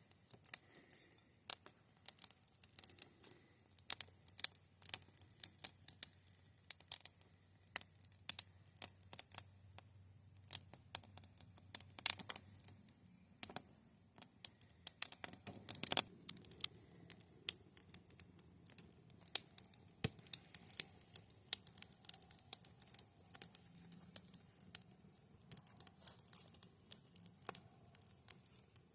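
Wood campfire crackling, with a dense run of irregular sharp pops and snaps and a few louder pops partway through.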